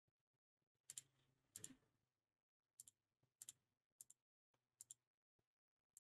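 Faint computer mouse clicks: about six in a row at uneven intervals, each a quick press-and-release double tick.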